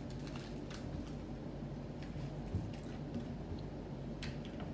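Handling of a Skittles wrapper and a plastic water bottle: a few faint clicks and crinkles as the candies go into the bottle, then a sharper click near the end as the screw cap goes on.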